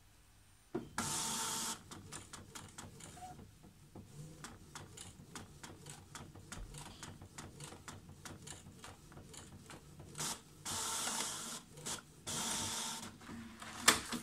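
HP DeskJet 720C inkjet printer printing a page: a loud whirr about a second in as the paper is drawn in, then fast, even clicking as the print carriage shuttles back and forth, then two more loud whirrs near the end as the page is fed out, and a sharp click just before the end.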